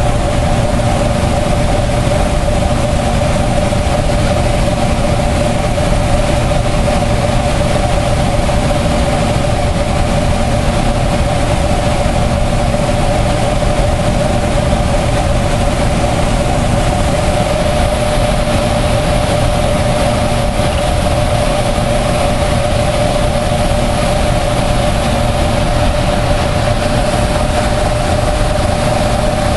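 Water pouring over a river dam's concrete spillway, a loud, unbroken rush, with a steady machine hum held at one pitch throughout.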